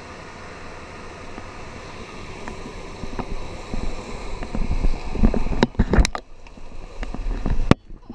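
An off-road SUV driving slowly along a muddy, rutted track, heard from a pole-mounted camera held outside the window: a steady noise of the running vehicle, then from about three seconds in a run of irregular thumps and knocks, loudest around five to six seconds. Near the end comes one sharp knock, after which the sound suddenly drops and turns muffled as the camera comes into the cabin.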